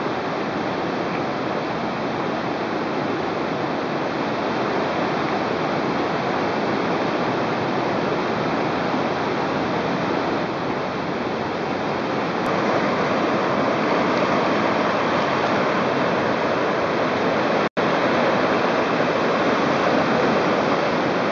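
A river in full flood after heavy rain, its fast brown water churning over rapids and a weir-like waterfall: a steady rush of water that grows a little louder just past halfway, with a split-second cut-out about three-quarters of the way through.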